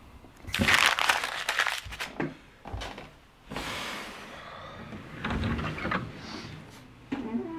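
A sheet of paper is crumpled up by hand in a dense crackling rustle over about a second and a half, followed by a few small knocks. About five seconds in, a wooden door is opened.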